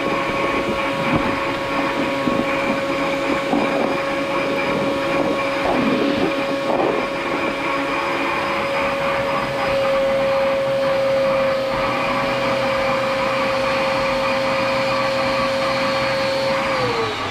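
Small vacuum cleaner with a hose running steadily with a constant whine. Near the end it is switched off and the motor winds down, its whine falling in pitch.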